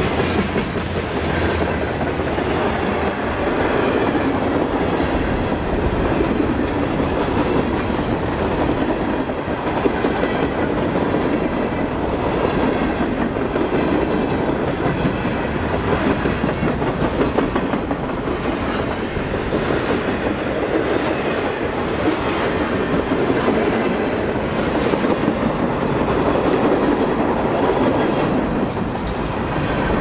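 Mixed freight train rolling past, its wheels clattering steadily over the rail joints.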